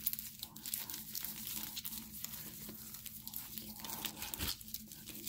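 Foil trading-card pack wrappers crinkling and crackling as a stack of sealed packs is shuffled through and counted by hand, a quick run of small crackles.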